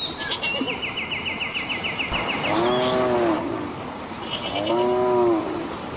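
An animal calling twice, each call short and arching up and down in pitch, with a fast high-pitched bird trill just before the calls.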